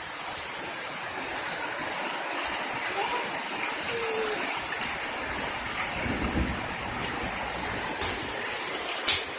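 Steady hiss of heavy rain falling, with two sharp taps near the end.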